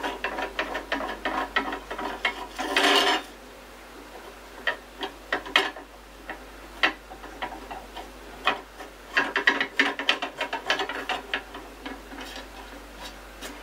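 3D printer's Z-axis lead screw being turned by hand through its threaded nut on the gantry: quick rasping clicks of thread against thread, in runs with a few lone ticks between.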